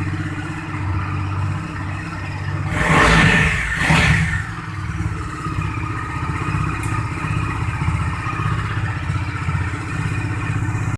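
Bajaj Dominar's single-cylinder engine idling through its BS6 exhaust, blipped twice in quick succession about three seconds in, then settling back to a steady idle.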